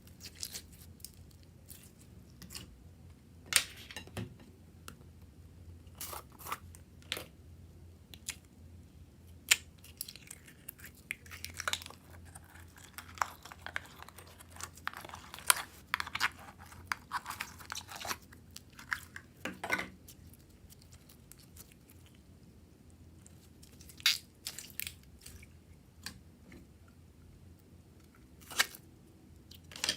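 Close crunching and chewing sounds: sharp crisp crunches scattered throughout, with a denser run of crackling in the middle.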